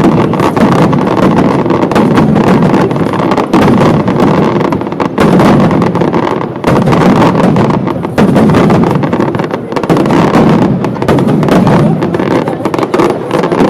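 Aerial fireworks display: a dense, continuous barrage of shell bursts and bangs, very loud, the reports following one another too fast to count.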